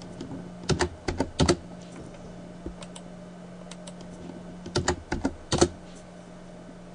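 Computer keyboard keys being tapped in two short bursts, about a second in and again about five seconds in, over a steady low hum.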